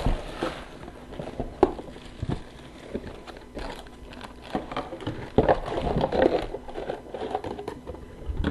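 Plastic shrink-wrap crinkling and crackling as a sealed hockey card box is unwrapped and opened, with small taps and clicks; the crinkling is busiest around the middle.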